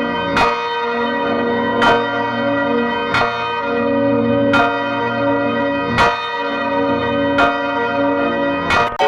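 A church bell tolling, struck about seven times at an even pace of roughly one stroke every second and a half, each stroke ringing on into the next.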